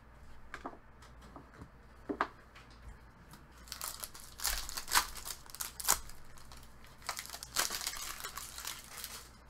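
A few light clicks, then the plastic wrapper of a hockey card pack torn open and crumpled by hand, in two spells of loud crinkling about four and seven and a half seconds in.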